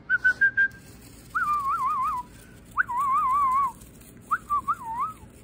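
A person whistling to call a dog back: a few short notes, then three warbling phrases in which the pitch wobbles up and down.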